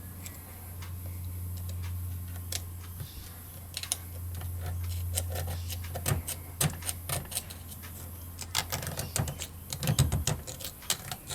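Irregular sharp metal clicks and scrapes of a tool working at the internal circlip of a motorcycle rear brake master cylinder, which is stuck fast with corrosion. The clicks grow thicker after about six seconds, over a steady low hum that stops about nine seconds in.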